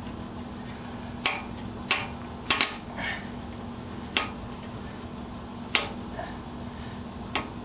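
Sharp clicks and snaps, about seven at irregular intervals, as a cord-grip connector for rubber-covered cord is pressed and locked into a small junction box, over a steady low hum.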